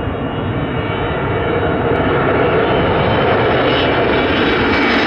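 McDonnell Douglas MD-82's two rear-mounted Pratt & Whitney JT8D turbofans running at takeoff thrust as the jet lifts off and climbs out. The steady jet roar grows louder and sharper about a second and a half in as the aircraft draws closer.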